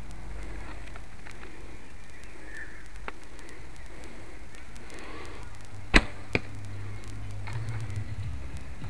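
A bow being shot: one loud sharp snap of the bowstring released about six seconds in, followed less than half a second later by a second, fainter sharp knock.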